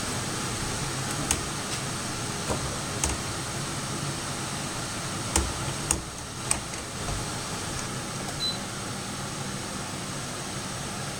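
Soleusair dehumidifier running steadily with a fan hum, with a few sharp clicks in the first half.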